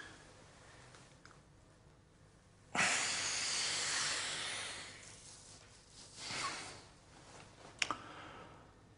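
A person breathing: a sudden heavy exhale about three seconds in that trails off over a few seconds, a shorter breath around six seconds, and a faint click near the end.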